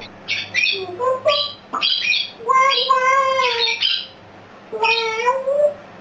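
Parrot squawking: a quick series of short squawks, then two longer, wavering calls.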